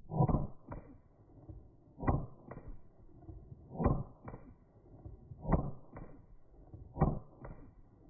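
Five single 9mm pistol shots fired at a slow, even pace, about one every one and a half to two seconds. Each shot is followed a little under half a second later by a shorter, fainter crack.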